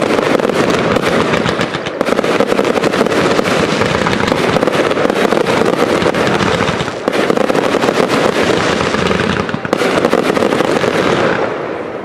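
Fireworks display: a dense, continuous crackling of many small rapid pops as clouds of glittering stars burst, with brief lulls about two, seven and ten seconds in.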